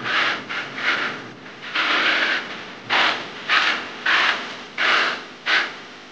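Putty blades scraping wet wall putty across a plastered ceiling in about nine short strokes, each a brief rasping rub.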